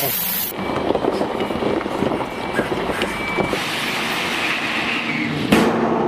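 Heavy tipper truck unloading gravel: its engine running under a continuous rattling rush of stones sliding off the raised dump body.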